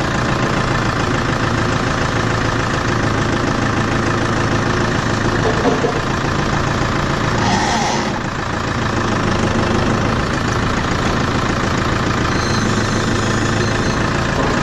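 Tractor engine running steadily, with a brief sharper noise about halfway through.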